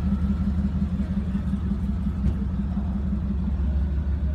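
Vehicle engine idling: a steady low rumble with an even pulse.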